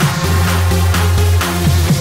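Electronic dance music from a DJ mix: a heavy, steady bass line under a regular beat of about two hits a second.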